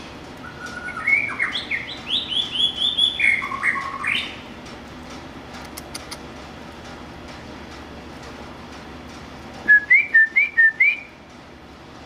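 White-rumped shama (murai batu) singing: a rich phrase of quick, varied whistled notes lasting about four seconds, then a pause and a short phrase of rising whistles near the end.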